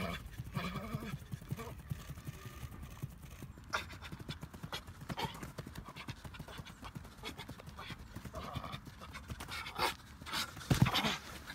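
Quick, rapid patter of football boots striking artificial turf during fast footwork and agility-ladder drills, with a louder thump near the end.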